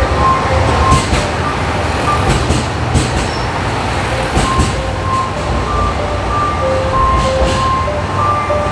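A JR West KiHa 187-series diesel railcar runs past a station platform. Its engine rumbles and its wheels clack over the rail joints several times. Over it plays an electronic chime melody of short stepped notes, which drops out for a few seconds in the middle.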